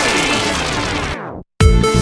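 Background music: a falling sweep that cuts off into a brief silence about a second and a half in, then an electronic dance track with a steady beat starts.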